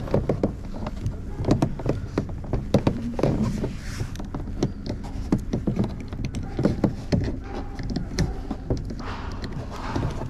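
Plastic interior trim of a car's rear door being pried and handled: a run of irregular clicks, taps and knocks.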